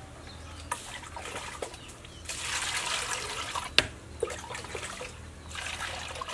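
Water splashing and sloshing in a metal bowl as large squid are washed by hand, with one sharp knock just before four seconds in. Near the end, water is poured into the bowl from a plastic scoop.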